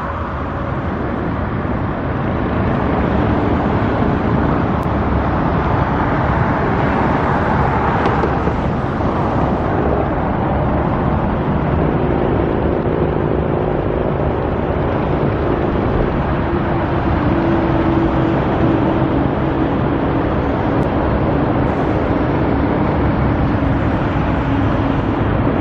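Steady, loud road traffic: cars and trucks passing continuously, with one vehicle swelling louder as it passes about eight seconds in and a low engine hum through the second half.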